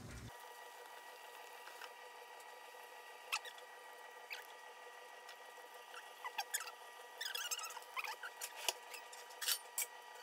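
Thin wooden stick stirring melted candle wax in a stainless steel pot, knocking and scraping against the metal. A few light clicks come first, then from about the middle a busier run of clicks and short squeaks. A faint steady whine runs underneath.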